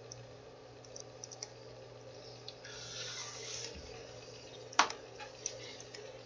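Faint computer keyboard keystrokes and mouse clicks while editing a document, with one sharper click just before five seconds in, over a low steady hum.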